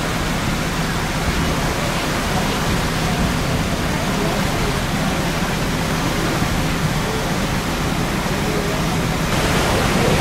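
Passenger boat under way on a lake: a steady rush of water churned along the hull and wake, with a low steady hum beneath. The rush grows brighter and a little louder near the end.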